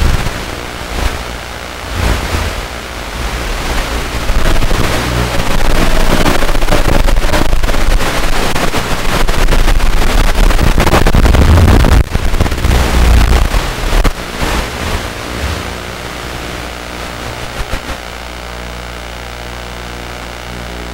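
Hiss and static on the audio of an analog FPV video link, loud and rushing through the middle. It eases about two-thirds of the way in to a steady, quieter hiss with a buzzing hum.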